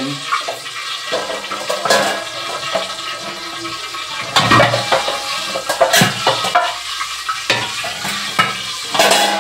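A hot pot of sautéed aromatics sizzling and hissing as water is added, with a few sharp knocks of cookware.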